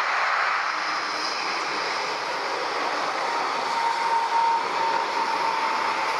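Twin jet engines of a Boeing 777 airliner running at takeoff thrust: a steady broad roar as it takes off and climbs out, with a high engine whine that glides slightly lower in the second half as the plane moves away.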